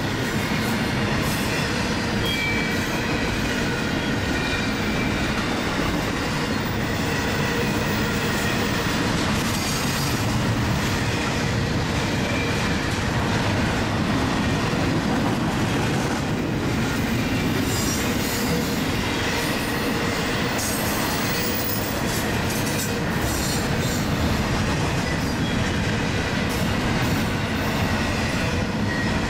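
Double-stack intermodal container train of well cars rolling past at track side: a steady rumble and clatter of steel wheels on the rails, with thin high wheel squeals coming and going.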